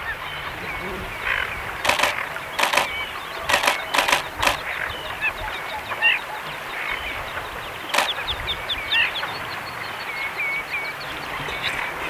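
Lakeside chorus of many waterbirds calling, short chirping calls over a steady hiss. A cluster of sharp clicks comes about two to four seconds in, and another near eight seconds.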